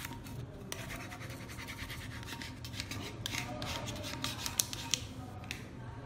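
Rubbing and scraping strokes over the transfer tape on a tumbler, smoothing a vinyl decal down onto it, with a few sharp ticks in the second half.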